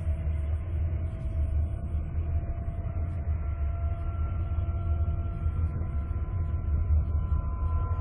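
Space sound sonification presented as the sound of Jupiter's moon Io: a steady deep drone with a hiss over it and a few thin held tones, a higher tone coming in about three seconds in.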